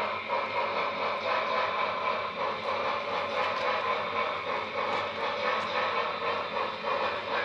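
Model train freight cars rolling along the track: a steady rolling rumble of metal wheels on rail, with faint scattered clicks.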